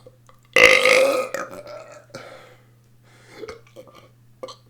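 A long, loud deliberate burp starting about half a second in and fading out over about a second, then a few faint short sounds.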